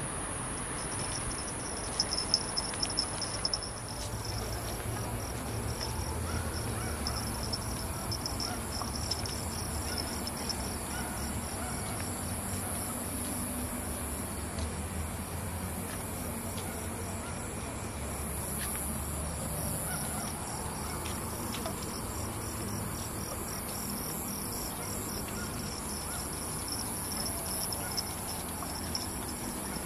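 Night insects chirping steadily outdoors: a high continuous trill with a lower, rapidly pulsing chirp beneath it, over a low rumble. A few sharp clicks come about two seconds in.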